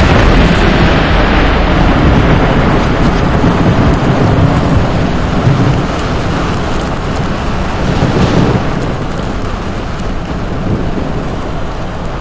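Thunderstorm: heavy rain with a continuous low rumble, easing off slightly toward the end.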